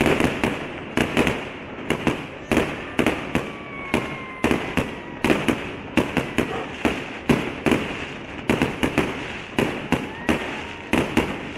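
Fireworks display: aerial shells bursting in rapid, irregular succession, about two or three sharp bangs a second.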